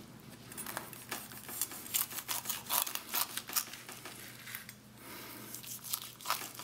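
Carving knife slicing through a roast turkey's crisp browned skin and breast meat: a run of sharp little crackles and crunches, thickest about halfway through.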